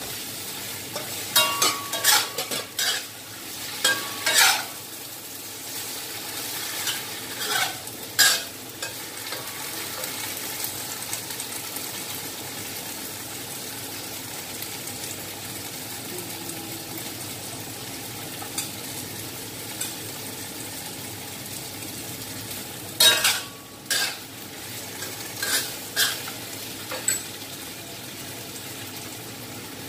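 Vegetables sizzling as they stir-fry in a steel wok, with a spatula scraping and clattering against the pan in short flurries near the start and again later on.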